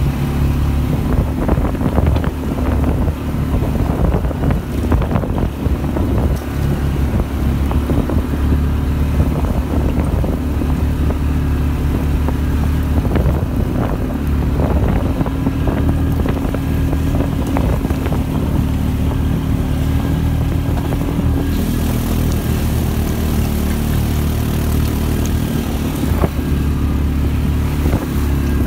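ATV engine running steadily while riding a rough gravel forest track, heard from the rider's seat, with frequent knocks and rattles from the bumps. About two-thirds of the way through, a hiss grows louder over the engine.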